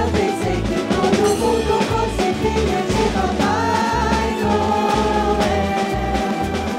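Upbeat stage music with a steady drum and bass beat and a sung melody over it.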